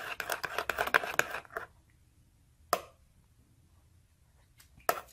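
Metal spoon beating shrimp-paste dipping sauce in a ceramic bowl, rapid clinking and scraping against the bowl as the sauce is whipped frothy; it stops about a second and a half in, followed by a few separate light taps.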